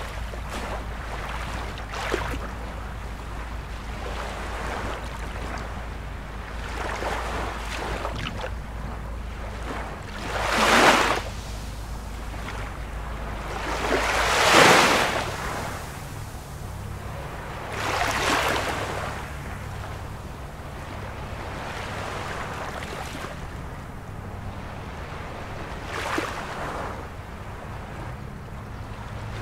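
Ocean waves washing with a steady background rush, swelling into louder surges every few seconds, the strongest about eleven and fourteen seconds in, over a low steady hum.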